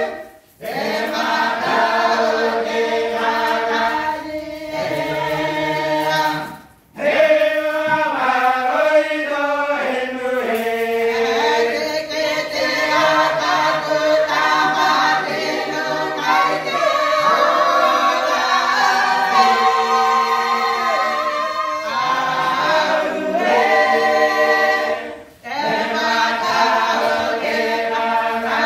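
A group of voices singing unaccompanied in harmony. The phrases are broken by brief pauses for breath just after the start, about seven seconds in, and about 25 seconds in.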